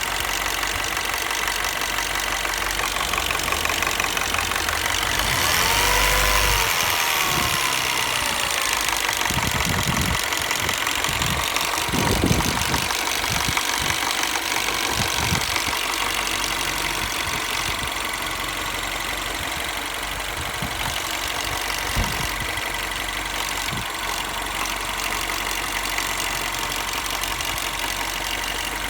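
2008 Mini Cooper S (R56) 1.6-litre turbocharged four-cylinder idling warm, with an intermittent loud knocking/ticking that has appeared since a new timing chain was fitted. The engine speed rises and falls once about six seconds in, and there are sharp knocks around twelve and twenty-two seconds in.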